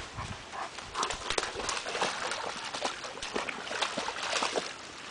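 Alaskan Malamute wading through a shallow creek, its legs splashing and sloshing the water in quick, irregular strokes.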